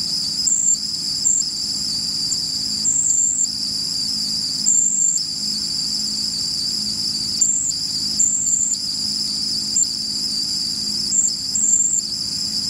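Vent alarm whistle of a home heating oil tank sounding as oil is pumped in through the fill pipe: a shrill, steady two-tone whistle that flickers and drops out briefly every second or so, with a low steady hum underneath. The whistle means the tank is still taking oil; here it is close to full.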